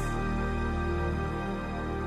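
Music with long held notes.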